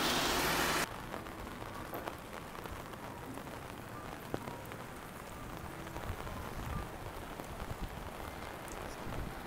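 Light rain falling, with scattered small drips and ticks. A louder, even hiss cuts off abruptly under a second in, leaving the quieter patter.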